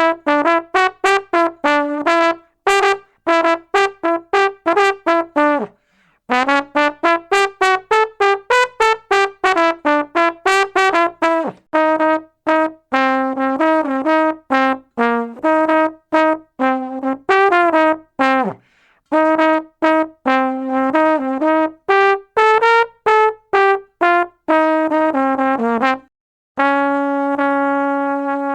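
A brass instrument playing quick, short detached notes in running melodic phrases, broken by a few brief pauses, and ending on one long held note.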